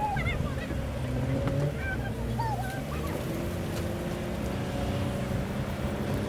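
Truck engine running steadily at low revs, with a few brief high chirps over it.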